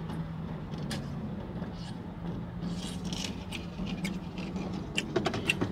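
A person drinking from a plastic cup, with a short sip or slurp about three seconds in and a few small mouth clicks near the end, over the steady low hum of a car's interior.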